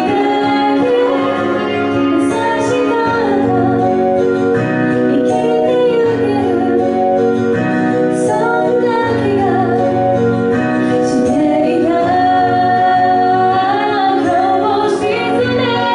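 A woman singing a slow, flowing melody live into a microphone over sustained instrumental chords and a steady bass line.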